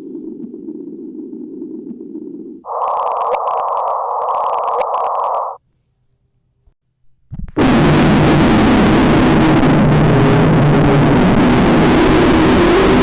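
Homemade synthesized sound effect for an original kaiju: a low, grainy hiss, then a higher-pitched crackling hiss, a short pause, and from about seven and a half seconds in a loud, harsh rushing noise with low droning tones underneath.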